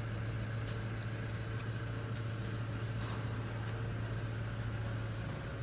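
Steady low hum over an even hiss of outdoor background noise, with a few faint clicks.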